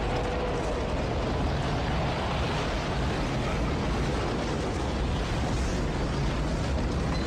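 Typhoon wind and rain: a loud, steady rush of noise with a deep rumble of wind buffeting the phone's microphone.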